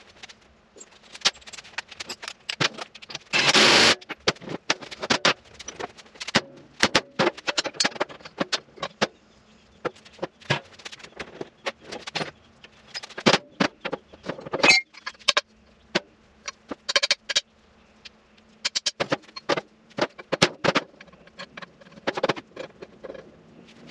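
Small metal parts and hand tools clinking and knocking irregularly during work on a driveshaft's universal joints. A short, louder scraping rattle comes a few seconds in, with a faint steady hum underneath.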